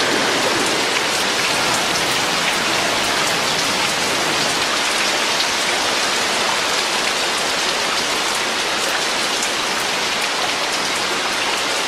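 Steady rain falling: an even hiss of rain with scattered drop ticks.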